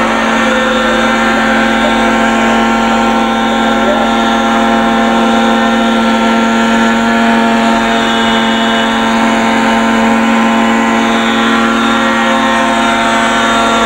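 Radio-control scale model helicopter's engine and rotor running steadily at hover, a loud unbroken drone with one strong steady pitch.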